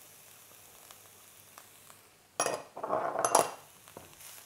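Food sizzling faintly in a hot wok, then about two and a half seconds in, a loud burst of clinking and scraping lasting about a second as ingredients go into the wok and are stirred.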